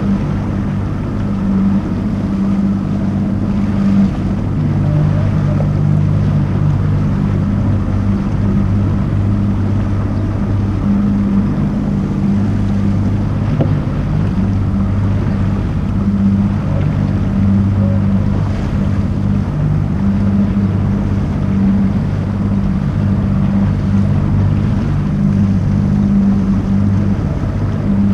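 Tohatsu outboard motor running under way at a steady cruising pace, its drone shifting slightly in pitch now and then, over water and wind noise.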